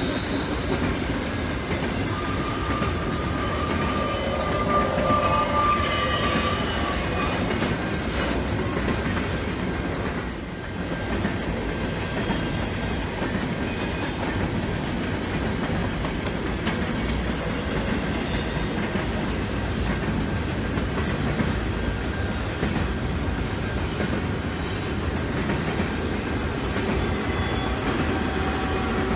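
Train rolling past on steel wheels, a steady rumble with the clatter of the cars. A thin high wheel squeal rings out a couple of seconds in and fades by about seven seconds.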